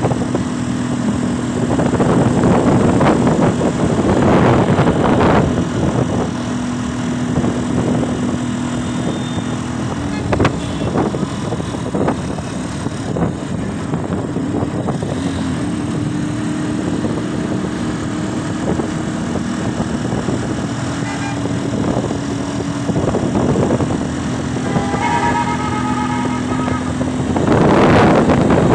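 Road noise from inside a moving vehicle: a steady engine drone with traffic and tyre noise that swells a few times, and a vehicle horn beeping briefly near the end.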